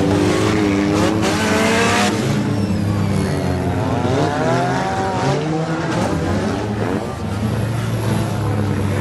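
Several demolition derby cars racing on a dirt figure-8 track, their engines revving up and down at different pitches, with a louder noisy burst between about one and two seconds in.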